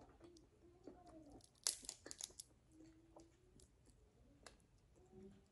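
Quiet close-up eating sounds: scattered clicks, with a cluster of crisp crunching snaps about two seconds in.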